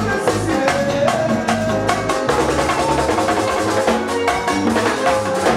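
Live bachata band playing: a quick, steady percussion pattern over bass and guitar lines.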